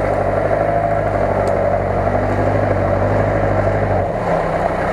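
UAZ-469 off-roader's engine running steadily as the vehicle wades slowly through deep muddy water; about four seconds in the engine note changes.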